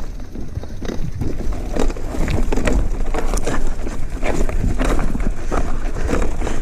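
Mountain bike rolling over a dirt trail: tyres crunching on the ground, with the chain and frame rattling in many short clicks over the bumps, and wind rumbling on the microphone.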